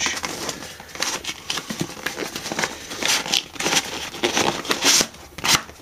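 A cardboard box being handled and opened by hand, with its inner sleeve and packing sliding out: irregular rustling, scraping and crinkling of card and packaging, louder strokes around the middle and near the end.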